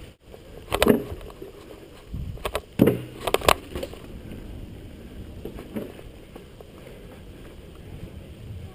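Mountain bike riding fast over a dirt trail: steady tyre and rolling noise with rattling, and sharp knocks from bumps about a second in and twice around three seconds in, then smoother, quieter rolling.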